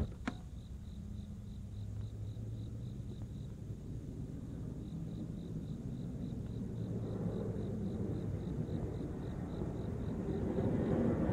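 Insect chirping steadily at a high pitch, about three to four chirps a second, with a brief gap about three seconds in, over a low rumble of road traffic that swells near the end. A single sharp click just after the start.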